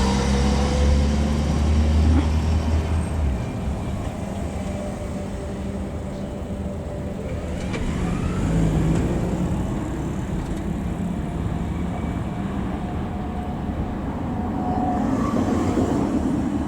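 DE10 diesel-hydraulic locomotive's engine running, a low steady drone that cuts off sharply about three and a half seconds in. An even rumble follows and swells again near the end.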